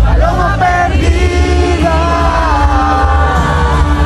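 Live concert music: a singer's voice holding and bending long sung notes over a loud band with heavy bass.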